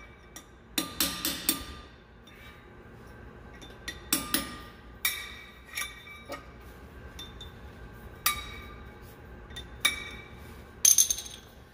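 A small hammer tapping at the cap on a planter closing wheel's hub to pop it off. Sharp metallic taps come in short groups, a few in quick succession about a second in and again near the end, each ringing briefly.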